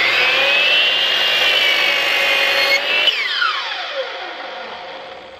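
DeWalt 12-inch mitre saw with a Diablo 44-tooth carbide blade coming up to speed with a rising whine and cutting through 3/4-inch oak plywood. About three seconds in, the trigger is let go and the motor winds down with a falling whine that fades away.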